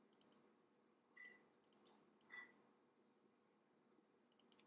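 Near silence: room tone with a few faint, scattered clicks of a computer mouse or pen being worked during photo editing.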